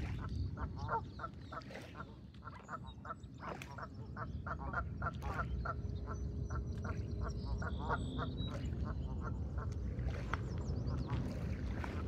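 A fast run of short, repeated animal calls, several a second, thinning out near the end, over a steady low rumble, with a few faint high chirps.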